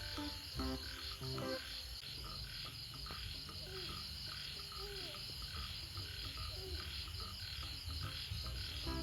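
Crickets chirping in a fast, steady pulse, over a low steady rumble, with a few short low calls that rise and fall about halfway through. Background music plays for the first second or so and comes back near the end.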